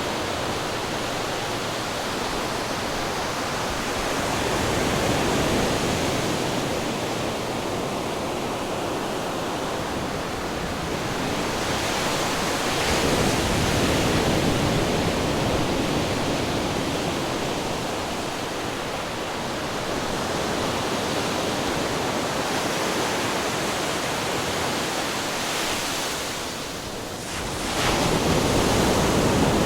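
Ocean waves crashing against rocks: a continuous rush of surf that swells louder about five seconds in, again around the middle, and once more near the end just after a brief lull.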